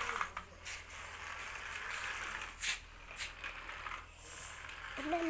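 Remote-control toy JCB excavator's small electric motors and plastic gears whirring, with a few sharp clicks; the whirring fades out around three seconds in.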